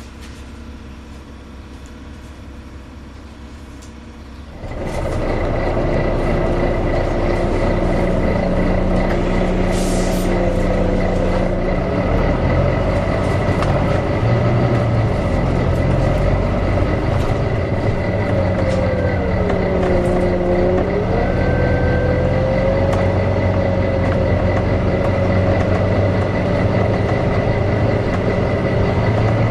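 Volvo B9TL double-decker bus running, with its engine cooling fan cutting in about four and a half seconds in: the sound jumps sharply louder into a steady hoover-like whine with a high screech over it. A middle whine wavers and dips in pitch once about two-thirds of the way through.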